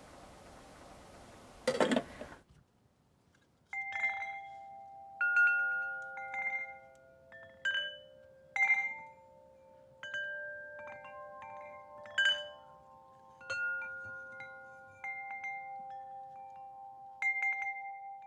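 A short clatter about two seconds in, then wind chimes struck at irregular intervals, single clear tones that each ring on for several seconds and overlap one another.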